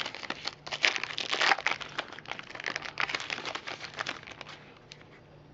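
Foil trading-card pack wrapper being torn open and crinkled by hand, a busy run of crackling that dies away about four and a half seconds in.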